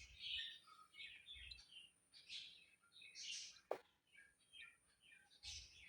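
Faint chirping of small birds in the background, short high chirps scattered throughout, with one sharp click a little past the middle.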